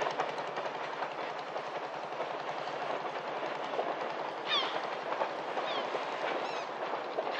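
Train running over a steel railway bridge, a steady rumble with the fast clatter of wheels on the rails. A few short high falling squeals come about halfway through and again near the end.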